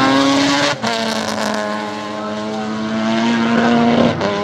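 Racing car engines at full throttle: a Mazda RX-7 passing close behind a V8 Holden Commodore. Under a second in the note cuts out briefly and comes back lower as a gear is changed, then holds and climbs slowly, with another short break near the end.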